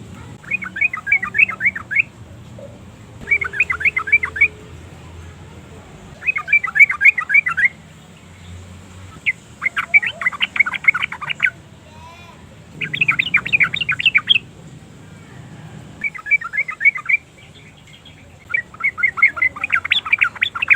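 Yellow-vented bulbul song: seven bursts of rapid chattering notes, each lasting a second or two, repeated every two to three seconds.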